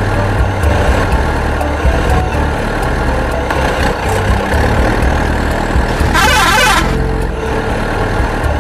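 Truck engine idling with a steady low rumble, and a brief hiss-like burst about six seconds in.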